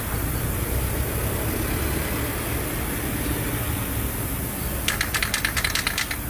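Steady low rumble of road traffic. About five seconds in, a quick run of a dozen or so sharp rattling clicks from the mixing ball of an aerosol can of gasket sealant spray being shaken.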